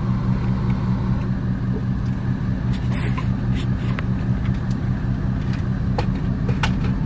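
Car running, heard from inside the cabin: a steady low engine and road hum, with a few faint short clicks.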